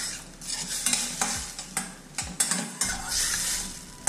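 Sliced button mushrooms and shallots frying in a stainless steel pan and being stirred with a spatula: a steady sizzle with repeated scraping strokes across the pan.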